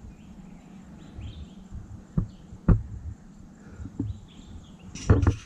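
Outdoor ambience in forest: low rumble with several dull thumps on the microphone, the loudest near the end, and faint short bird chirps behind.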